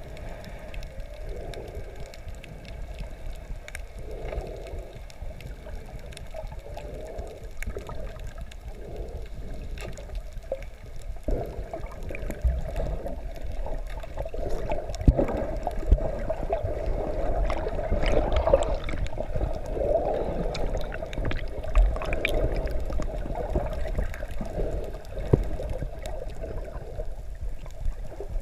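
Underwater sound heard through a GoPro's waterproof housing: muffled sloshing and gurgling of water with scattered small clicks, growing louder about halfway through.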